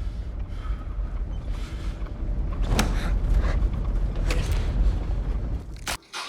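Horror-film soundtrack: a low rumbling drone with scattered creaks and knocks, cutting off abruptly near the end.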